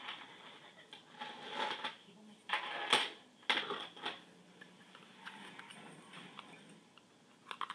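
Rummaging through makeup: small plastic cases and items clattering and being handled, with a few sharp clicks about three seconds in and again near the end.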